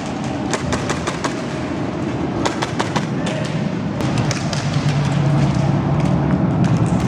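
Airsoft guns firing in short rapid bursts of sharp cracks, one cluster about half a second in and another about two and a half seconds in, over a steady low din.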